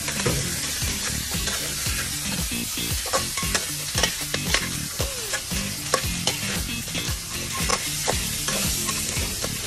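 Food sizzling in a hot pan as it is stirred, the utensil knocking and scraping against the pan many times at an uneven pace.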